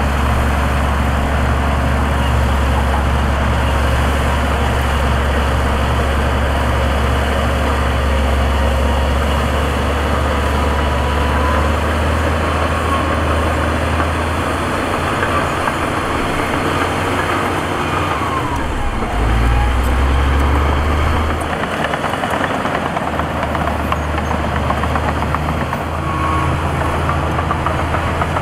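Heavy diesel construction machinery running, with a deep, steady engine drone. The drone shifts about halfway through, swells briefly to a louder surge about twenty seconds in, then drops back.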